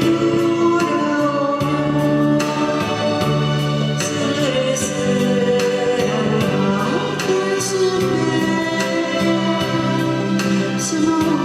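Singing with acoustic guitar accompaniment: a slow song with voices holding long notes over steady strummed chords.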